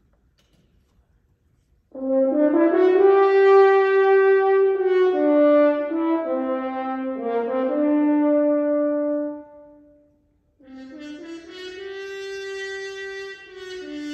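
French horn playing a slow melodic phrase that begins about two seconds in, out of silence, and dies away a little before ten seconds; a second, softer phrase starts shortly after.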